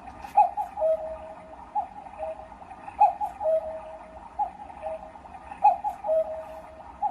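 Wooden cuckoo clock's cuckoo calling the hour: a two-note "cu-ckoo", high then lower, repeated about every second and a quarter, five times.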